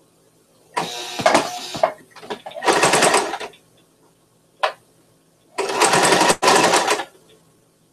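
Electric domestic sewing machine stitching fabric in short runs of about a second each, stopping and starting four times, with a brief quick burst near the middle.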